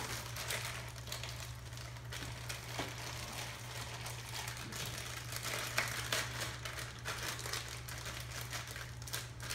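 Clear plastic packaging bag crinkling and rustling in the hands as a part is unwrapped, in a continuous run of irregular crackles.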